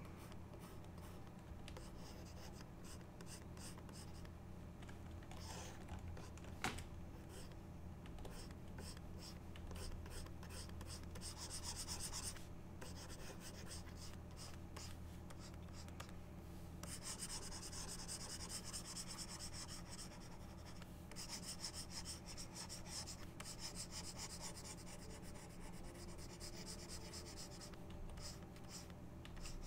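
Stylus scratching on a drawing tablet in runs of short sketching strokes, with longer strokes about twelve seconds in and again from about seventeen to twenty seconds, over a steady low hum. One sharp click comes about seven seconds in.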